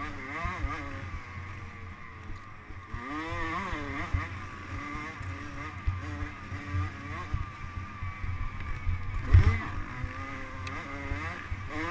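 Dirt bike engine heard from onboard, its pitch rising and falling over and over as the throttle is worked and gears are changed, over a low rumble with knocks from the bike. There is a loud knock about nine and a half seconds in.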